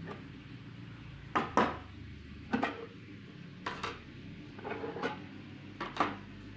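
Hard clacks from a handmade eyeglass lens cutting machine being worked, mostly in quick pairs, five times about a second apart. A steady low hum runs underneath.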